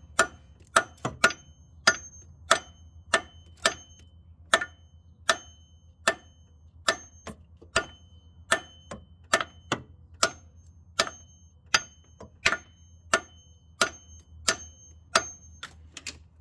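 Claw hammer striking a steel freeze plug in the cast-iron block of a Jeep 4.0 inline-six: a steady series of sharp metallic blows, about three every two seconds, each with a short ring. The plug is being knocked loose from its bore and is moving slightly with the hits.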